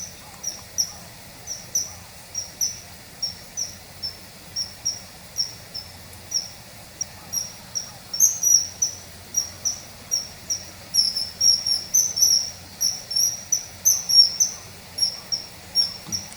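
Common kingfisher calling: short, high, thin whistled calls repeated about two to three times a second, some in quick pairs.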